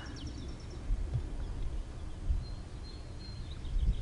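Outdoor background noise: an uneven low rumble of wind and handling on a camcorder microphone, with a faint high thin call, likely a bird, about halfway through.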